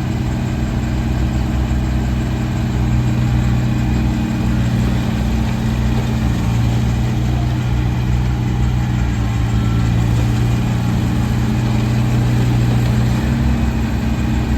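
Kubota BX24 tractor's small three-cylinder diesel engine idling steadily, its pitch shifting slightly a few times.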